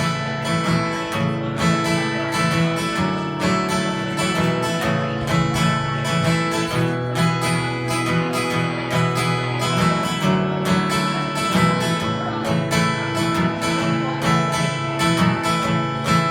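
Acoustic guitar strummed in a steady rhythm: the instrumental introduction to a song, before the singing comes in.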